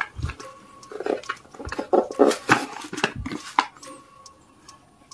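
Cardboard mailer box being opened by hand: the tuck flap is pulled free and the lid lifted. It makes a run of irregular scrapes, rustles and knocks that die down near the end.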